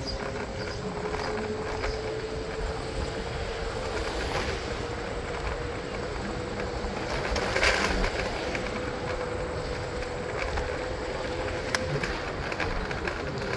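Wind and road noise from riding in a city bike lane, with a steady whine throughout. The noise swells briefly about eight seconds in, and there is a single sharp click near the end.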